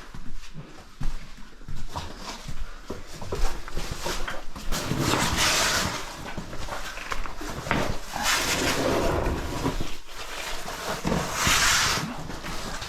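A person breathing hard, with three loud breaths a few seconds apart, over scuffs and knocks of moving across rock.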